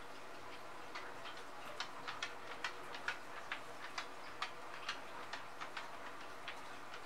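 Irregular light clicks and crackles from a thin plastic sheet being handled over wet acrylic paint, two or three a second, starting about a second in and stopping shortly before the end.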